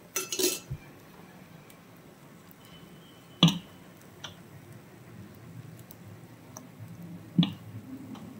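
A short rattle at the start, then a few sharp metal clinks of kitchen utensils, the loudest about three and a half seconds in and another near seven and a half seconds.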